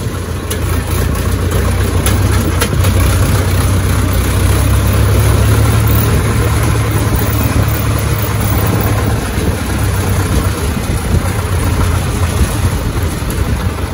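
Diesel tractor engine running steadily under way, a low drone that swells slightly a few seconds in and then eases.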